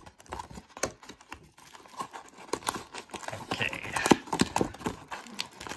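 Cardboard box and wrapped trading-card packs being handled: scattered taps and knocks with crinkling of the pack wrappers.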